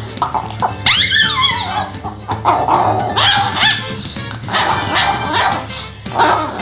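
A Chihuahua growling and barking in several short bouts, over a steady background music track.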